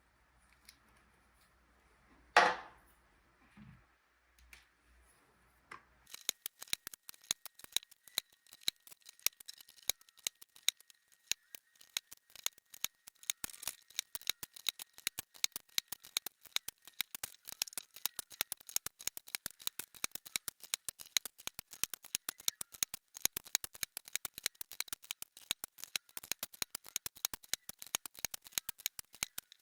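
A single loud knock about two seconds in, then from about six seconds on a fast, unbroken run of small sharp plastic clicks from an Amiga keyboard's keys and keycaps, several a second.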